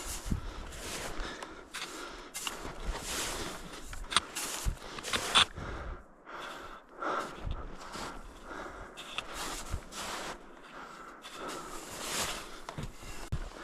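Gusty wind buffeting the microphone, with irregular rustling and scuffing noises.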